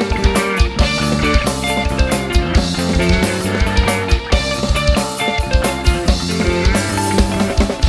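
A rock band playing live: electric guitars over a drum kit keeping a steady beat.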